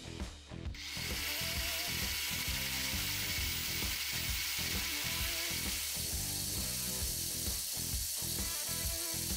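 Kyuho LG100 4-inch, 650-watt angle grinder switched on about a second in and running unloaded at full speed, near 9,400 RPM, a steady hiss of motor and fan.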